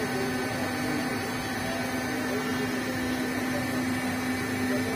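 A steady mechanical hum holding one constant pitch throughout.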